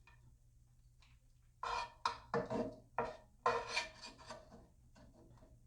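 A utensil scraping Beyond Beef filling in a skillet: a quick run of about five short scrapes starting about a second and a half in.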